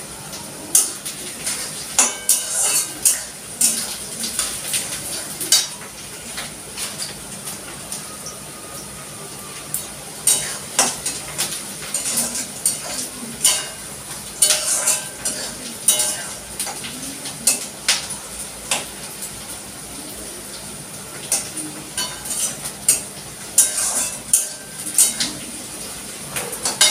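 Metal spatula scraping and clinking against a metal kadai as onions are stirred and fried in hot oil, with a steady sizzle underneath. The clinks come irregularly, several a second, throughout.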